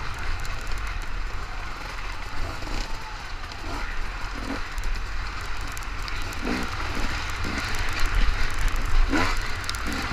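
Honda XR400 dirt bike's single-cylinder four-stroke engine revving up and falling back again and again under race riding, with a strong low rumble throughout.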